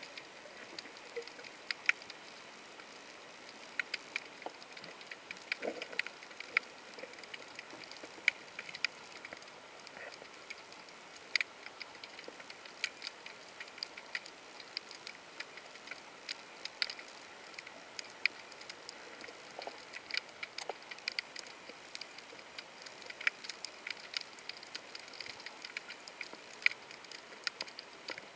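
Underwater ambience over a shallow rocky seabed: a steady faint hiss with irregular sharp clicks and crackles scattered throughout.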